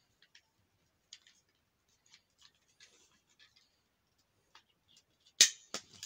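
Light plastic clicks and rattles from a rainbow puzzle ball fidget toy being turned in the hand, then two sharp plastic clacks, half a second apart, about five and a half seconds in, as a blue block fidget toy is picked up.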